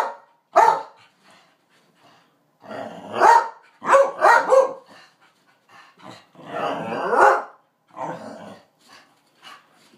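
Glen of Imaal Terriers barking in about five separate drawn-out bursts with pauses between, demanding their breakfast.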